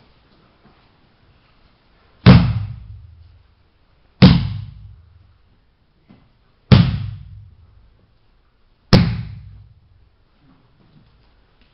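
Four loud flat slaps on a vinyl-covered mat, about two seconds apart, each ringing briefly in the hall: a jiu-jitsu partner's palm tapping out as each leg lock comes on.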